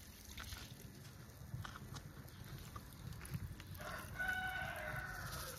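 A rooster crowing once: one drawn-out call that starts a little past the middle and lasts about a second and a half, with a few faint clicks before it.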